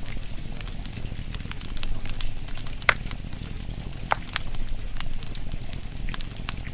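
Irregular crackling pops and snaps over a low, steady rumble, with two sharper snaps about three and four seconds in.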